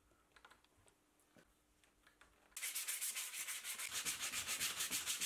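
A few faint clicks, then about two and a half seconds in, hand-sanding of a plywood saddle starts: quick, even back-and-forth rubbing strokes of sandpaper on wood.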